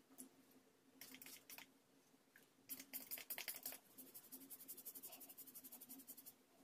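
Faint crackly scratching and rustling of fingers parting and rubbing through natural hair at the scalp, in short runs of small ticks, the longest a fast run of about ten a second in the second half, over a faint steady hum.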